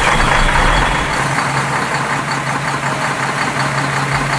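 Truck engine idling: a steady low hum with a busy rattle over it, the engine sound laid over toy dump truck footage.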